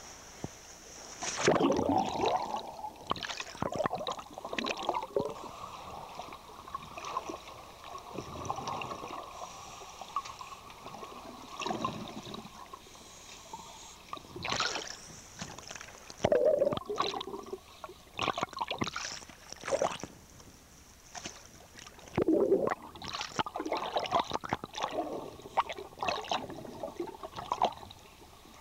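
Lake water sloshing and splashing around a camera's underwater housing at the surface, in irregular bursts. About halfway through the housing goes under and the sound turns to muffled underwater gurgling.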